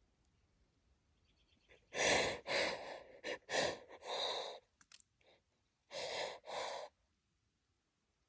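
A woman's heavy, breathy sighs and breaths: a quick run of four about two seconds in, then two more after a short pause.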